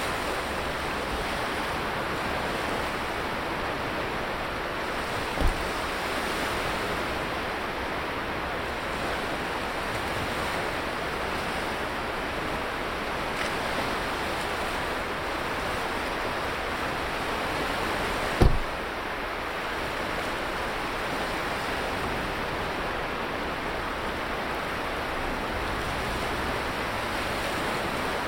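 Sea surf washing steadily onto a sandy beach, a constant rushing noise. Two brief low thumps, about five seconds in and again past the middle.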